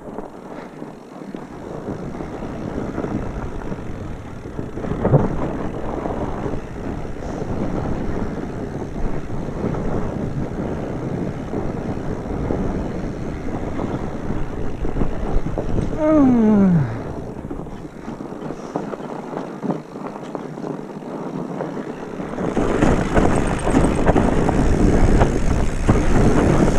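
Mountain bike riding down a rough dirt trail: wind on the microphone and tyres and frame rattling over bumps, growing louder near the end. A short falling tone sounds a little past halfway.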